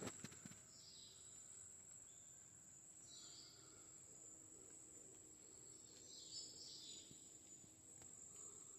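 Faint rainforest ambience: a steady, high-pitched insect drone, with a few faint distant bird calls about one, three and six seconds in.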